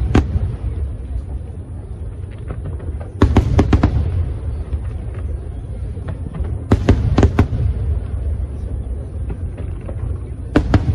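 Aerial fireworks bursting: clusters of sharp bangs about three seconds in and again near seven seconds, over a steady low rumble.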